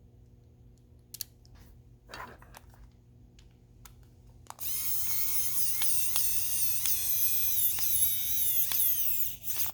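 Small electric motor whining at high speed for about five seconds, starting about halfway in, its pitch wavering slightly with regular ticks over it, after a few handling clicks.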